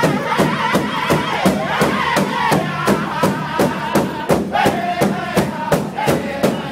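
Northern-style powwow drum group: several men singing together in a high, held chant over a big powwow drum struck in unison at a steady beat of about three strikes a second.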